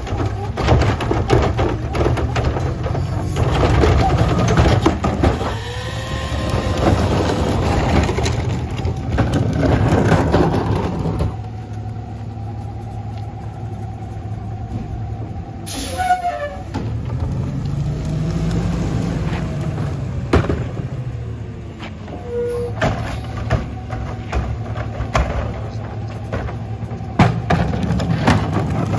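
Rear-loader garbage truck at work: its diesel engine runs steadily and revs up and falls back a couple of times to drive the hydraulics for the cart tippers and packer. Scattered clanks and knocks of carts and metal are heard throughout.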